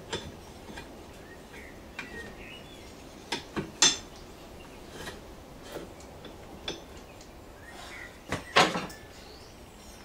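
Metal parts of an MTD mower's clutch/idler bracket clinking and knocking as they are pressed and fitted back together by hand, in scattered clicks with louder knocks about four seconds in and near the end.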